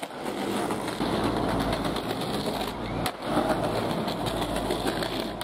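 Skateboard wheels rolling over pavement with a steady rumble, broken by sharp clacks of the board at the start and about three seconds in.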